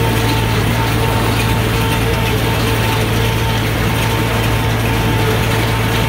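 Ford 5000 tractor engine running steadily under load, pulling a New Holland 488 haybine (mower-conditioner) whose cutter bar and conditioner rolls run with it as it cuts alfalfa. The drone is even throughout, a low hum with a steady higher tone over it.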